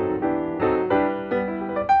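Piano music: a melody over chords, with new notes struck several times a second.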